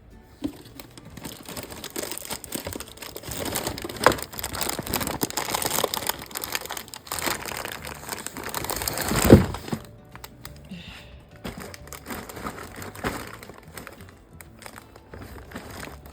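Plastic food packaging crinkling and rustling as it is handled and packed, with one loud thud about nine seconds in, over background music. It is quieter for the last few seconds.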